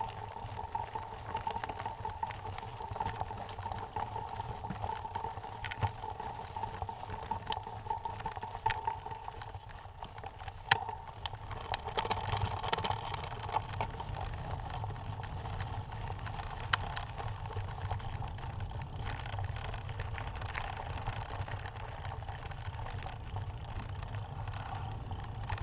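Mountain bike rolling over a loose gravel track: tyres crunching on stones, with scattered sharp knocks and rattles from the bike, and a low wind rumble on the microphone.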